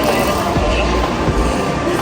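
Music playing over a steady, noisy background.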